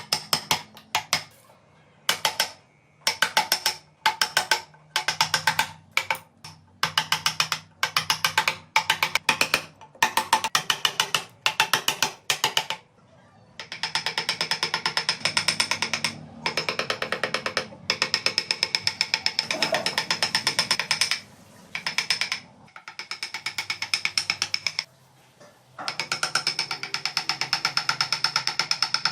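A carving chisel tapping rapidly into wood. It comes first in short bursts, then in a long unbroken run of fast strikes with a ringing metallic edge.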